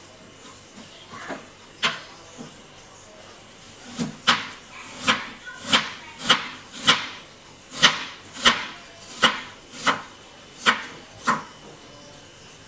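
Kitchen knife slicing a green apple thinly on a cutting board: a few scattered knocks, then a steady run of about a dozen sharp chops, roughly one every two-thirds of a second.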